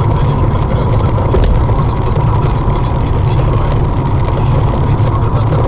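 Inside a moving car's cabin on a wet highway: a steady, loud rumble of engine and tyres on the wet road, with a faint steady whine and a few light ticks.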